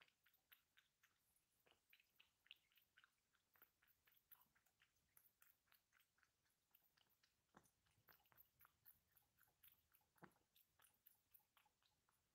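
Cat eating from a metal bowl: faint, quick wet clicks and smacks of chewing and licking, about three or four a second, with a couple of stronger smacks in the second half.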